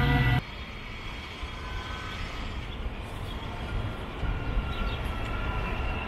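A Metra bilevel commuter train running on an elevated track, heard as a low, even rumble under city background noise, with a faint high squeal coming in about halfway through. It opens with a loud, steady multi-tone sound that cuts off abruptly a fraction of a second in.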